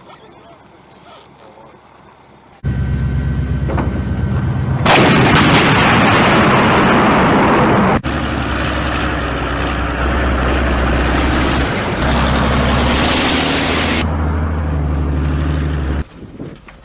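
Heavy artillery gun firing once, about five seconds in, over the loud steady rumble of a heavy engine, followed by a long loud rushing roar. The sound starts and stops abruptly.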